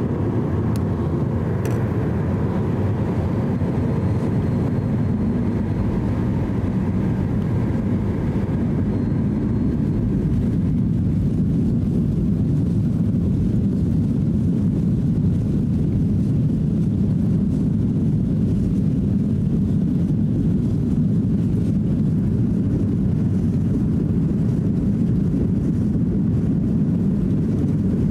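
Cabin noise inside a Boeing 737-800 taxiing onto the runway: a steady low rumble from its CFM56 jet engines at low thrust. A faint whine fades away about ten seconds in, and the rumble grows a little louder after that.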